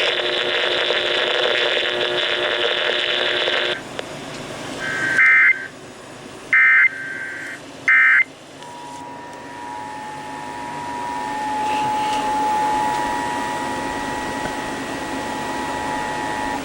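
Weather-radio static that cuts off about four seconds in. Then three short warbling data bursts, the Emergency Alert System end-of-message code, and from about nine seconds the steady two-tone EAS attention signal.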